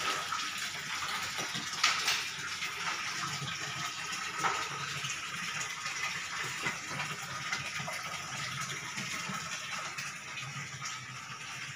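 Steady rushing noise like running water, with a sharp knock about two seconds in and a lighter one a few seconds later.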